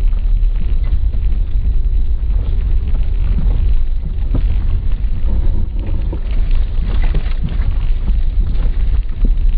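A car driving along a rough dirt track, heard from inside the cabin. A steady low engine and road rumble runs throughout, with scattered knocks and rattles as the car goes over bumps.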